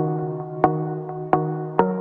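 Background music: plucked or struck pitched notes at a steady beat, a few per second.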